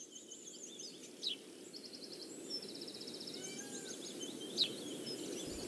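Outdoor rural ambience: several birds chirping and trilling over a low steady rumble, slowly growing louder. Two sharper, louder calls stand out, about a second in and near the end.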